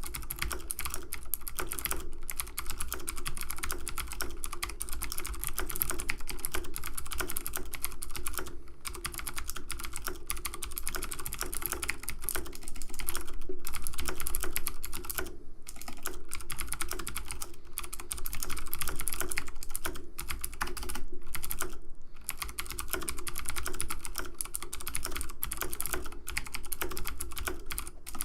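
Computer keyboard keys clicking in a rapid, dense, continuous stream, like fast typing, with a few brief pauses.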